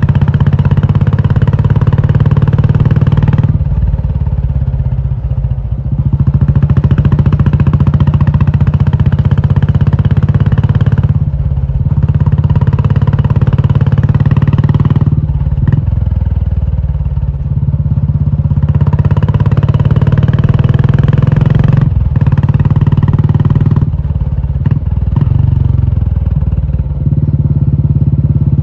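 Royal Enfield Classic 350's single-cylinder engine running loud through an aftermarket Indore exhaust. The note repeatedly swells to full and falls back for a second or a few seconds as the throttle is opened and closed.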